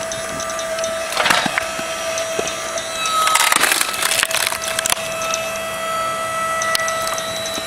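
Electric hydraulic log splitter with a 1500 W motor and two-stage pump humming steadily as its wedge is pushed through a log. The wood cracks and splinters briefly about a second in, then again in a longer spell from about three to five seconds in.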